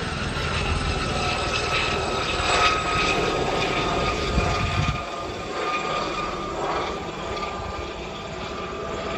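Helicopter flying overhead, its rotor and engine heard steadily; the low rotor rumble drops away about five seconds in as it moves off, leaving the higher engine whine.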